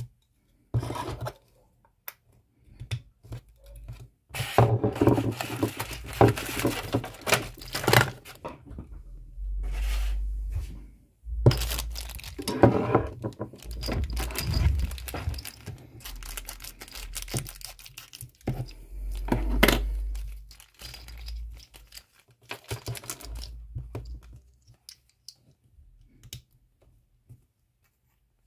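Thin clear plastic bag crinkling and tearing as it is handled and opened, in irregular rustling bursts with a few dull low thumps against the table.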